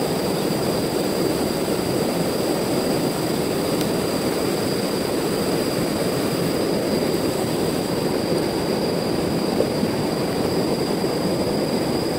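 Fast-flowing river rushing steadily over rocks, a continuous low rushing with no breaks, with two thin steady high whines above it.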